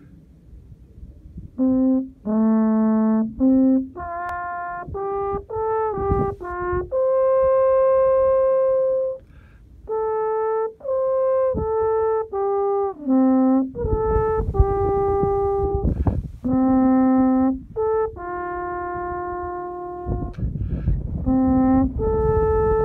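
A solo brass horn playing a slow folk melody, one held note after another, starting a couple of seconds in. Low wind rumble on the microphone comes and goes under it.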